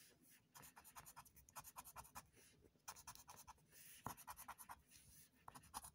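Faint scraping as a wooden scraper scratches the latex coating off a scratch-off lottery ticket. It comes in several runs of quick strokes with short pauses between them.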